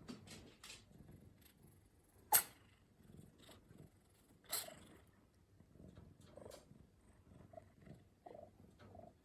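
Orange tabby cat purring, with two sharp sneezes, a very loud one about two seconds in and another about four and a half seconds in. The sneezing comes from a lingering cat cold.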